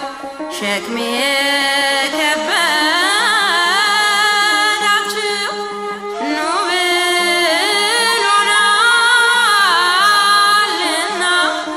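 A woman singing an Amharic Ethiopian Orthodox hymn (mezmur) in long melismatic phrases, her pitch bending and wavering, over a held low accompaniment note. A new phrase begins just under a second in and another about six seconds in.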